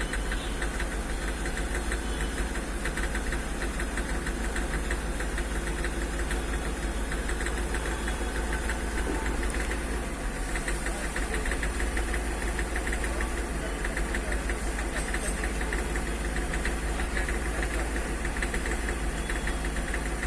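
Hyundai Xcent diesel engine running at a steady idle with a fast, even knocking clatter. This is the engine knock the car came in with, alongside misfiring and white smoke from incomplete combustion.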